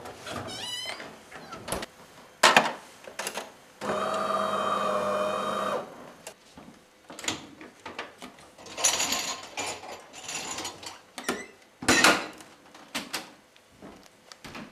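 Kitchen appliance handling: a door knocks shut a couple of seconds in, then a small appliance motor hums steadily for about two seconds. Later, dishwasher racks rattle and the dishwasher door bangs shut near the end.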